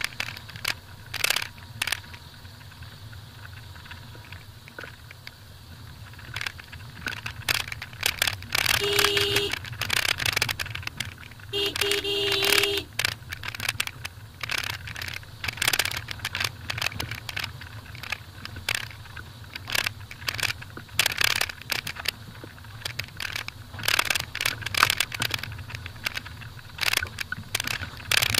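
Maruti Suzuki Vitara Brezza driving slowly over a rough gravel and rock road: a steady low engine and tyre rumble with frequent knocks and rattles. A car horn sounds twice, briefly about nine seconds in and again, slightly longer, around twelve seconds in.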